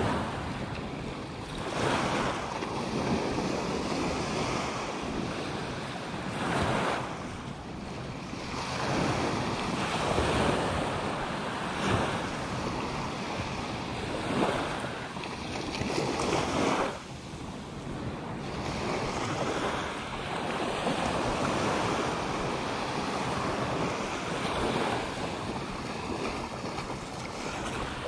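Small ocean surf breaking and washing up the sand in repeated surges, with wind buffeting the microphone.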